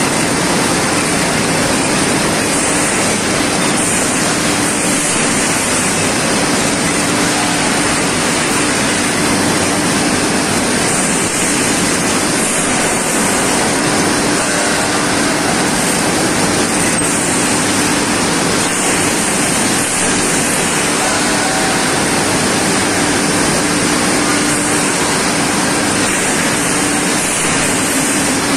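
ERW steel tube mill running in production: a loud, steady mechanical din with a steady hum under it.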